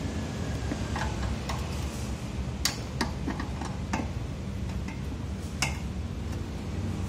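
Socket wrench with an extension being worked on a bolt of a small petrol generator engine: irregular sharp metal clicks and clinks a few times a second, over a steady low background noise.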